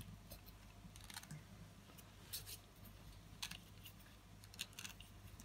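Faint, scattered clicks and scratches of fingers working at a stroller's plastic front-wheel hub, pulling out hair and string wound around the axle bore.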